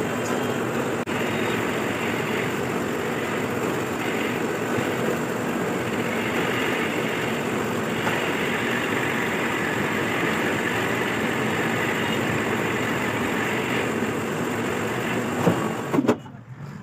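Metal lathe running steadily with a dense, even machine noise that drops off sharply near the end, just after a couple of sharp knocks.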